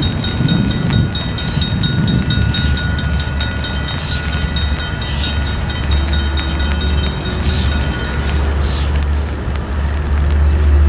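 Low, steady rumble of an approaching freight train's diesel locomotives, not yet in sight. A steady high-pitched tone and fast, even ticking ride above it, and the tone stops about three quarters of the way through.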